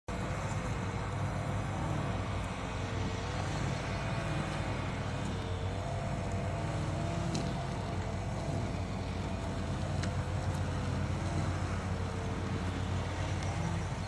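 An engine running steadily: a low drone with a hum that wavers slowly up and down in pitch.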